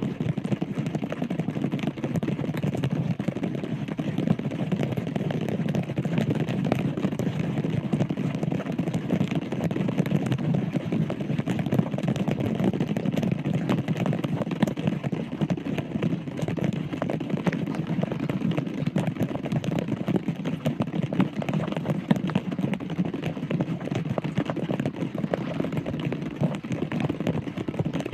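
Heavy rain falling steadily, a dense run of small drop hits over a constant wash of noise.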